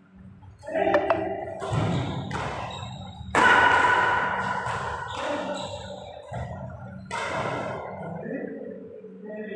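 A badminton rally: rackets strike the shuttlecock several times at uneven intervals, each hit echoing around a large hall. The loudest hit, about three and a half seconds in, rings on and fades over a couple of seconds.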